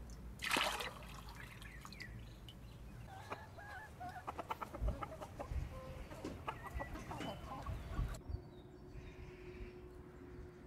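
A hen clucking in a quick series of short clucks, after a brief splash of water near the start.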